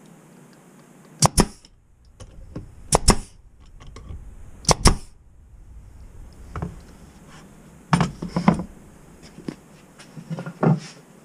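Brad nailer firing three times into a pine drawer box, each shot a sharp double crack, about two seconds apart. Later come a few more loud knocks as tools and a glue bottle are handled on the bench.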